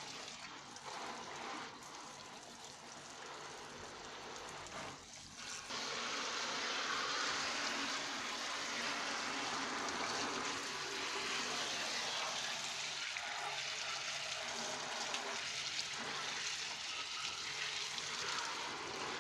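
Water running and splashing as the air conditioner's indoor unit is rinsed clean, a steady rush that gets louder about six seconds in.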